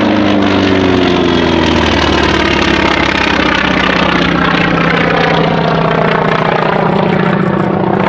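Grumman FM-2 Wildcat's Wright R-1820 radial piston engine running loud as the fighter flies a display pass. Its pitch falls over the first couple of seconds as it goes by, then holds steady.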